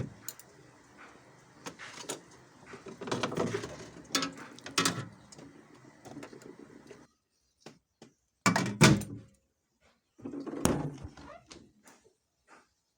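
Refrigerator door being opened and shut, with knocks and clatters of containers handled inside it. The loudest thunk comes about nine seconds in.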